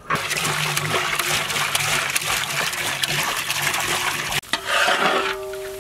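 Water pouring in a steady stream into a large cooking pot, with a brief break about four and a half seconds in.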